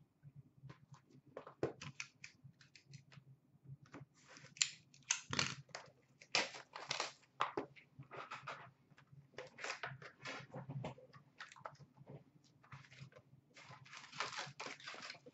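Card pack wrappers crinkling and tearing as hockey card packs are opened by hand, in irregular bursts of crackling.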